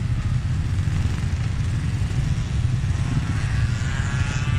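Motorcycle engine running as it rides slowly through traffic, under a heavy rumble of wind buffeting the microphone. A faint higher wavering tone joins in during the last second and a half.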